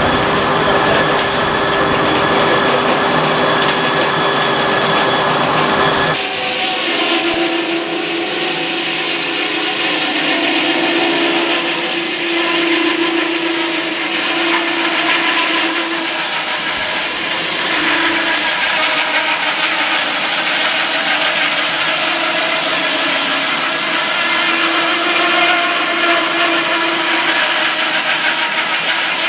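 Sawmill running with its saw cutting through wood: a steady machine hum, then an abrupt change about six seconds in to the louder hiss of the blade in the log, its pitch wavering as the cut goes on.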